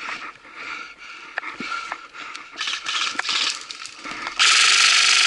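Airsoft electric rifle firing a long full-auto burst about four seconds in, loud and close. Before it come scattered small clicks and rustling of movement through brush.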